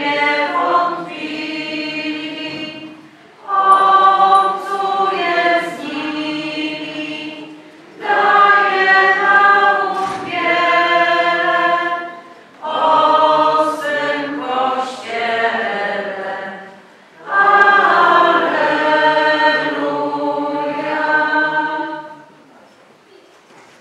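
Choir singing a slow religious song a cappella, in phrases of about four seconds with short breaks between them, fading out near the end.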